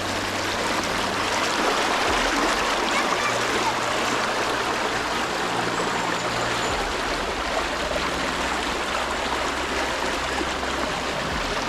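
Stream water rushing over rocks, a steady, fairly loud hiss with no break.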